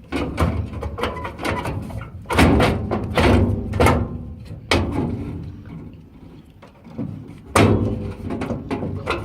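Metal clanks and knocks from a furnace burner assembly being worked back into the furnace housing: a run of separate impacts, several with a short metallic ring, the loudest about two and a half seconds in and again near the end.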